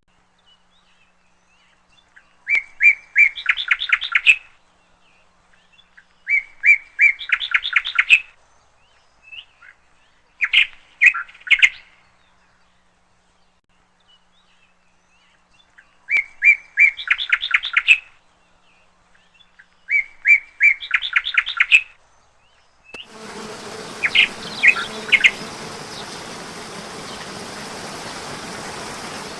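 A songbird repeating the same short song about every four seconds: each phrase opens with a couple of clear notes and runs into a quick series of notes, lasting about two seconds. About 23 seconds in, a steady rushing background noise starts, with a few more bird notes over it.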